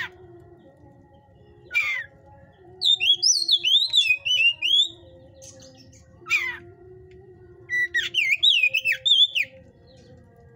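Oriental magpie-robin (kacer) singing in the fired-up 'hot' condition birdkeepers call tipe panas. Two bursts of rapid, varied high warbling, a couple of seconds each, are set between a few short, sharp calls that slide downward.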